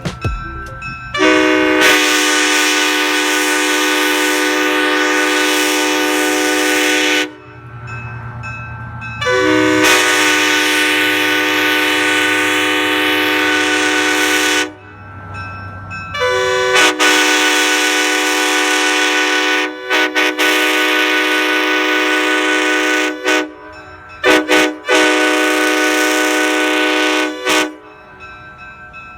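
Nathan Airchime K5LA five-chime locomotive air horn with 1980s wide-font bells, sounding its chord in three long blasts, the last broken by a few quick stutters. A low rush of air fills the gaps between the first blasts.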